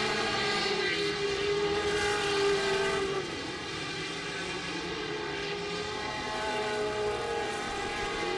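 Engines of several Pro Buggy off-road race cars running hard on a dirt short course, their overlapping pitches rising and falling as they accelerate and lift through the turns. A little quieter after about three seconds.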